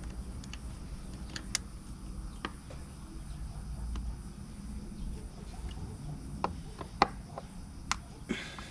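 Scattered sharp clicks and taps of a screwdriver on the metal screws and mount of a boat's transom-mounted depth-sounder transducer as it is unscrewed, over a low steady rumble.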